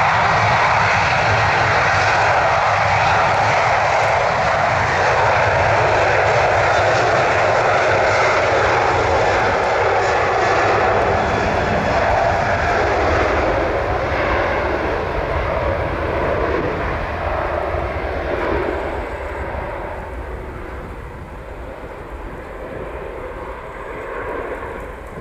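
Boeing 737-800 jet, its twin CFM56-7B turbofans running at takeoff thrust during the takeoff roll. The jet noise is loud and steady, loses its high hiss about halfway through, then slowly fades as the aircraft moves away.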